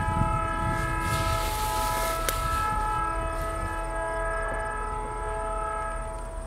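A diesel locomotive's multi-chime air horn sounding one long, steady chord that fades out near the end, with one sharp click about two seconds in.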